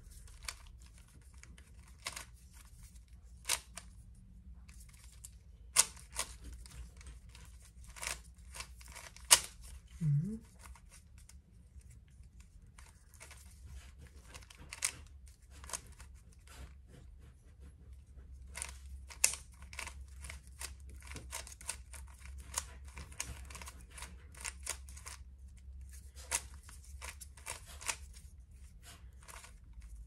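Plastic Rubik's cube being turned by hand: quick, irregular clicks and clacks as the layers snap round, coming in bursts that grow busier in the second half.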